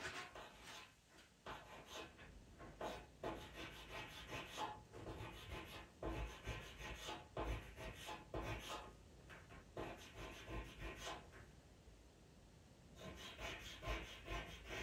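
Pastel pencil scratching across textured Pastelmat paper in a run of short, quick strokes, laying in fur. The strokes stop for about a second near the end, then start again.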